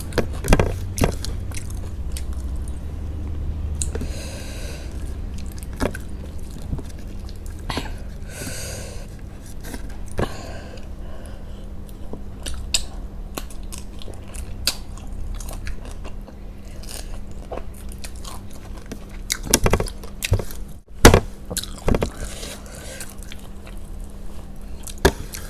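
Close-miked eating sounds: a person chewing and biting food, with many sharp wet mouth clicks scattered irregularly. The clicks are loudest in a cluster about three-quarters of the way through.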